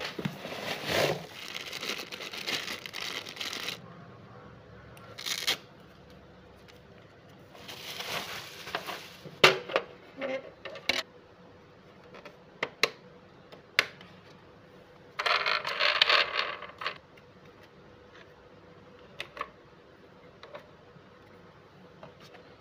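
Unboxing handling sounds: crinkling and rustling of plastic wrapping and packaging in bursts, with scattered sharp plastic clicks and knocks as the robot vacuum and its parts are handled.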